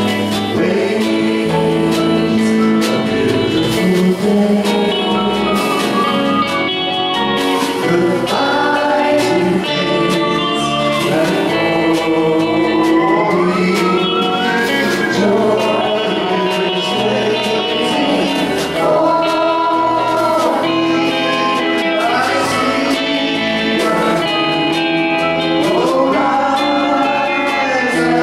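Live band music: a man singing a slow melody in long held notes, backed by pedal steel guitar and acoustic guitar.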